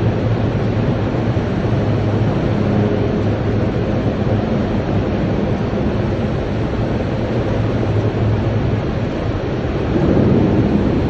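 Steel-melting furnace running while scrap is charged: a loud, steady industrial roar with a low hum, swelling a little near the end.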